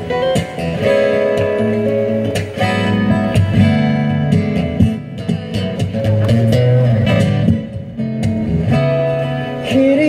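Acoustic guitar playing an instrumental passage of plucked notes and chords, with no singing.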